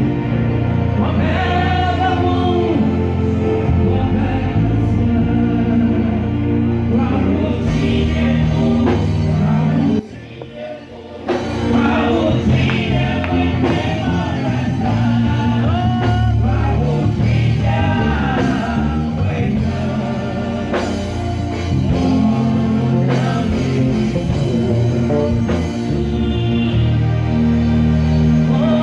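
Live gospel song through a PA: a female lead singer with backing singers over instrumental accompaniment. The sound drops sharply for about a second just after ten seconds in, then comes back.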